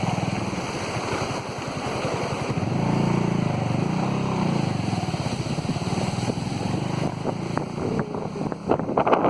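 A vehicle engine running under way, its pitch rising and falling about three seconds in, with wind buffeting the microphone. Near the end come several sharp knocks and rattles.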